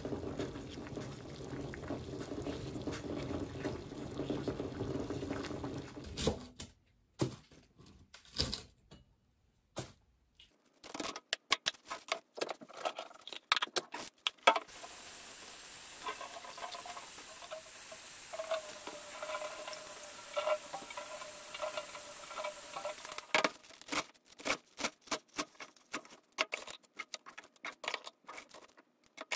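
Eggs boiling in a small saucepan, a steady bubbling for about the first six seconds. Then handling sounds: leafy greens rustled and sorted by hand in a plastic colander, with scattered clicks and taps.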